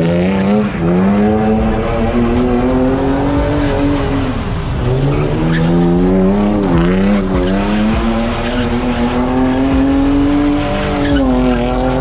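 Car engine revving hard at high rpm while its rear tyres spin and squeal in a burnout. The pitch climbs, drops back around four seconds in and again near seven seconds, then rises in one long climb before falling off near the end.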